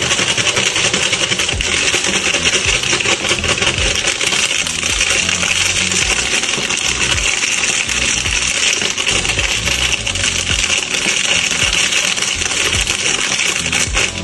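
Close-up crinkling and rustling of foil and plastic snack wrappers being handled, a dense, continuous crackle of tiny sharp clicks.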